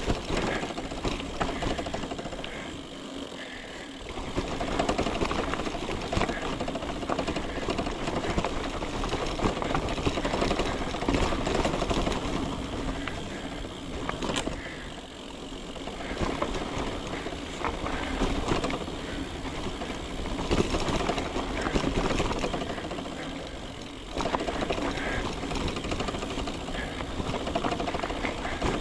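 Mountain bike descending a rough dirt and rock trail: the tyres crunch over the ground and the bike rattles over bumps, with rapid mechanical ticking from the coasting freewheel.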